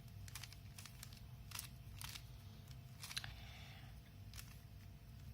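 Rubik's Cube layers being turned by hand: faint, irregular plastic clicks, about ten in a few seconds.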